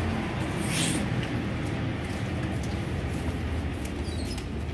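Steady low background rumble, with a short rustle about a second in.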